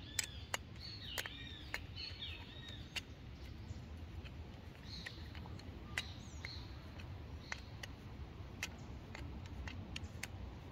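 Scattered small metal clicks and ticks from an Allen key turning a shoulder screw into a metal side-stand bracket, the sharpest near the start and about six seconds in. Birds chirp in the background during the first few seconds and again around the middle.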